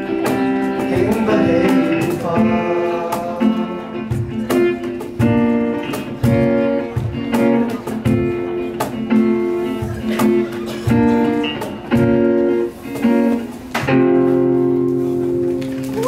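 Acoustic guitar playing the song's instrumental outro: strummed chords in a steady rhythm, with a long held chord near the end.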